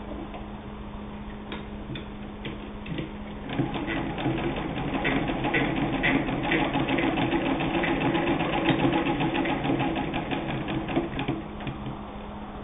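Singer 66 hand-crank sewing machine stitching through denim. A few single clicks are followed, about three seconds in, by a fast, even clicking of the stitching mechanism, which stops near the end. There is no motor sound.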